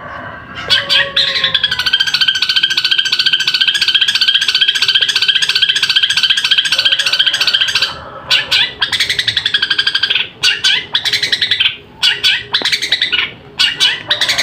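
Long-tailed shrike (cendet) singing loudly. It gives a long, fast run of rapidly repeated notes for several seconds, then breaks into shorter, choppy phrases with brief gaps.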